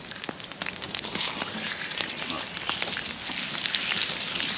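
Wood fire crackling with scattered sharp pops, and raw tenderloin steaks sizzling on a hot cast-iron griddle, the hiss thickening from about a second in as the meat goes on.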